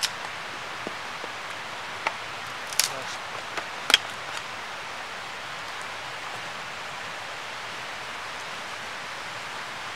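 A few sharp knocks of a knife and a small axe striking firewood in the first four seconds, the loudest about four seconds in. Under them the steady rush of a nearby river and waterfall, which then carries on alone.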